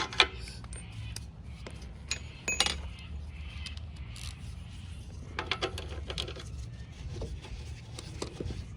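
Hand ratchet and socket undoing the bolts on a Briggs & Stratton mower engine: scattered sharp metallic clicks and clinks, one ringing briefly about two and a half seconds in, and a quick run of ratchet clicks a little past halfway.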